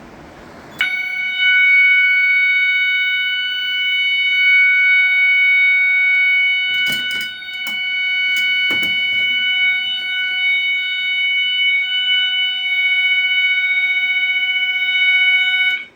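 Fire alarm horn on a Simplex 4010 system, set off by a manual pull station, sounding one continuous steady tone. It starts about a second in and cuts off suddenly just before the end as the alarm is silenced. A few faint clicks fall midway.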